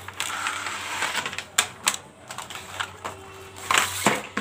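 Screwdriver kit's cardboard box and plastic tray being handled and opened: a rustle, then several sharp plastic clicks and knocks.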